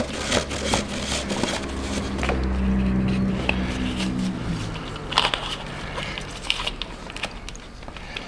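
Diesel fuel filter bowl being spun off its filter head by hand, with scratchy rubbing and creaking of the threads and housing, then a few sharp clicks later on. A low steady hum sounds for about three seconds in the middle.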